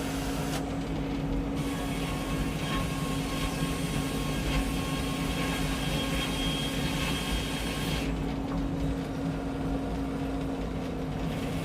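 Frick 01-C circular sawmill running steadily with a constant hum. A hissier layer rides on top from about a second and a half in until about eight seconds in, then drops away.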